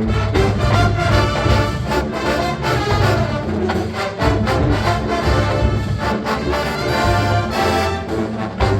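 Marching band playing at full volume: massed brass over drums keeping a steady beat.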